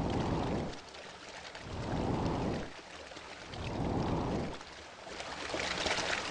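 Water washing in three slow swells about two seconds apart, like small waves lapping, then a brighter hissing splash near the end.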